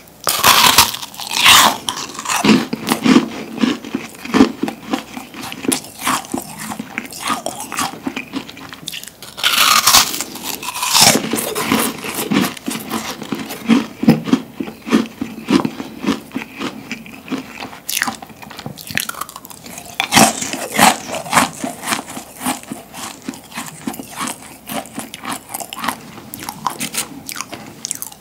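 A large meringue cookie bitten and chewed close to the microphone: crisp crunching bites about a second in, near ten seconds and around twenty seconds, with crackly chewing in between.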